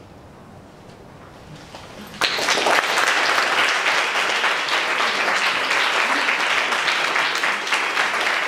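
A quiet hush, then an audience breaks into applause about two seconds in, with steady clapping from then on.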